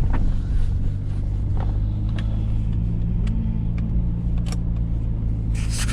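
GMC Sonoma pickup truck driving along, its engine a steady low drone with a few light clicks and rattles.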